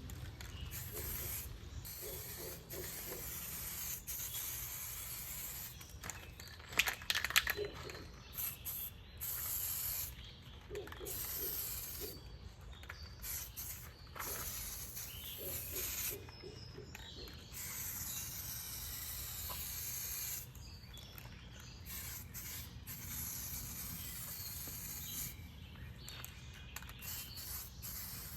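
Aerosol spray can hissing in repeated passes of a few seconds each, stopping and starting as coats of primer and paint are laid on the trim. There is a short loud clatter about seven seconds in, over a steady low hum.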